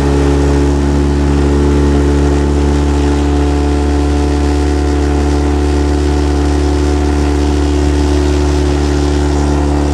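Outboard motor of a coaching launch running steadily: a constant low engine drone that holds one pitch throughout.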